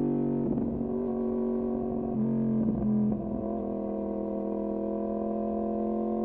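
Yamaha MT-10's crossplane inline-four through an Austin Racing exhaust, its note easing down off the throttle with a rough crackle for the first few seconds, then running steady at lower revs.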